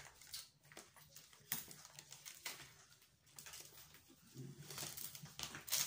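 Handling of a new handbag and its packing: irregular rustling with light clicks and taps as the bag is turned over and opened.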